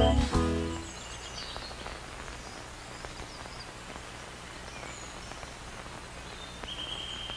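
Outdoor ambience: a soft steady hiss with a low hum under it and a few faint high bird chirps, and a steady high-pitched tone that comes in near the end. A music chord dies away in the first second.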